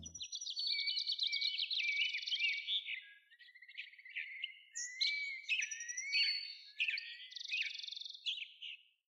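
A songbird singing: a long run of high, fast chirps and trills mixed with short rising whistles, with brief pauses between phrases.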